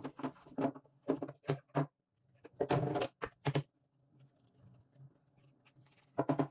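Soapy sponge scrubbing a ceramic plate: a run of short rubbing strokes, a longer, louder stroke about three seconds in, quieter rubbing after that, then a last quick stroke near the end.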